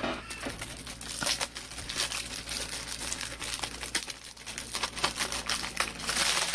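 Plastic packaging crinkling and rustling as it is handled, with many small clicks and crackles, growing a little louder near the end.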